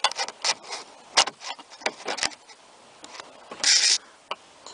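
Sharp clicks, knocks and light rattles of hands and a tool working the lock mechanism inside a car door, trying to lift a lock part by hand, with a short hissing rush of noise near the end.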